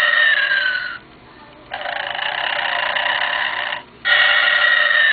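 Animated Santa toy playing its recorded cartoon snoring through its small speaker, with no low end. A snore with a whistle falling in pitch ends about a second in, then comes a longer rasping snore, then another falling whistle begins near the end.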